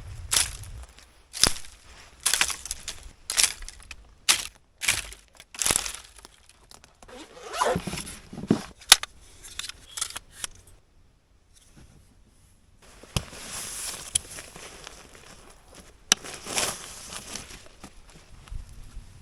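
Dry dead sagebrush branches being cut and snapped off: a run of sharp rasping strokes, then a longer stretch of crackling, rustling brush, with a short pause a little past halfway.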